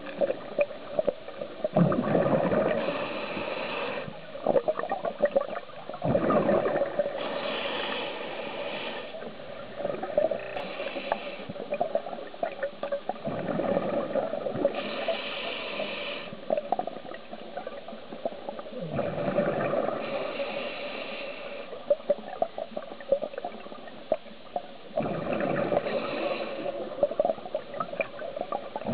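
Scuba diver breathing through a regulator: a hiss on each inhale and a gush of bubbles on each exhale, repeating about every five to six seconds.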